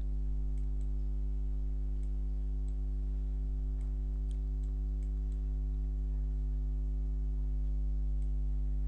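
Steady electrical mains hum, with a scattered handful of faint computer mouse clicks.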